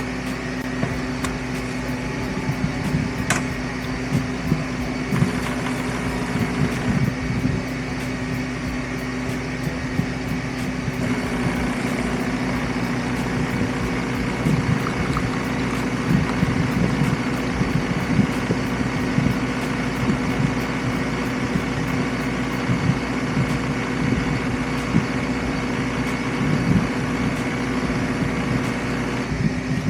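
Philips 3200 super-automatic espresso machine running a test brew cycle: a steady mechanical hum with a buzzing tone from its motor and vibration pump, its texture shifting slightly a few seconds in.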